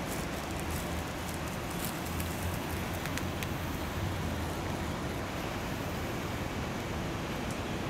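Steady even hiss of outdoor background noise, with a few faint short ticks.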